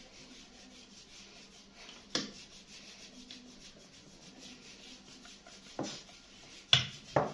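A rolling pin rolled back and forth over a thin slice of bread on a board, making a soft, evenly repeated rubbing. A sharp knock comes about two seconds in, and a few more come near the end as the pin is set down or lifted.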